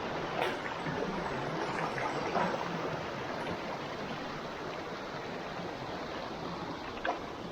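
Stream water rushing in a steady hiss, with a few brief clicks in the first couple of seconds and one more near the end.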